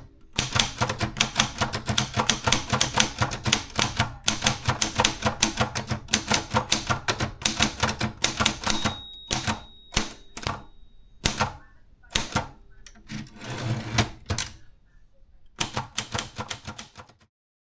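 Maritsa 30 portable manual typewriter being typed on: a fast, dense run of key strikes that thins to scattered strokes after about nine seconds. A longer, smoother sound comes around two-thirds of the way through, then a last quick burst of keystrokes, and the sound stops just before the end.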